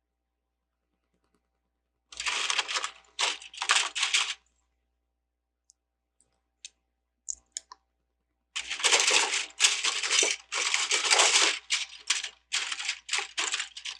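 Loose plastic LEGO bricks rattling and clattering as a hand rummages through the spread-out pieces, in two stretches of clatter with a few single clicks in between.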